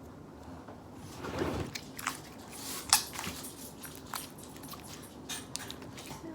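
Slime being squeezed and worked by hand, with soft squelching and scattered small pops and clicks.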